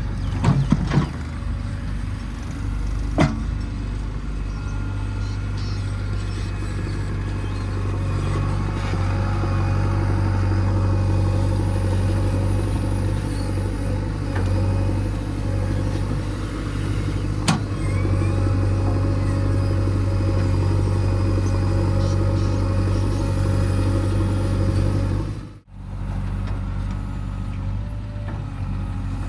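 Heavy diesel engine of earthmoving machinery running steadily, with a few sharp metallic knocks, once about a second in, once about three seconds in, and once midway. The sound drops out briefly near the end.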